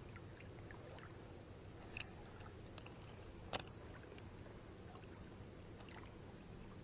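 Quiet, with a few short clicks from a small spinning reel being handled. The sharpest click comes about three and a half seconds in, another about two seconds in.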